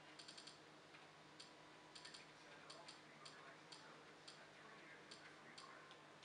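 Faint clicks of buttons being pressed over and over, some singly and some in quick runs of four or five, over a low steady hum.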